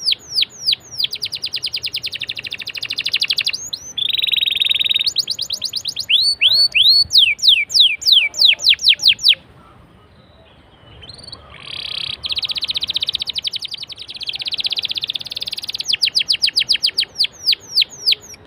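Domestic canary singing: rapid runs of sharp, falling whistled notes alternating with buzzing rolled trills, with a short break about halfway through before the song resumes.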